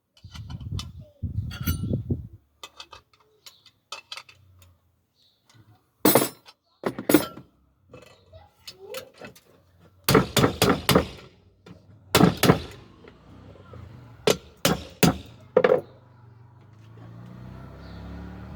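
Metal cookware being handled: a series of sharp clinks and knocks in irregular clusters, with a low rumble coming up near the end.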